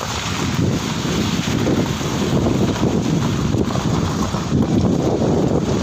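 Wind buffeting the phone's microphone, a loud, uneven low rumble.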